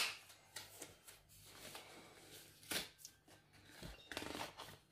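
Apple Watch Series 7's white cardboard box and paper sleeve being torn open and unfolded by hand: faint scattered rustles and crinkles, with a sharper crackle of paper nearly three seconds in.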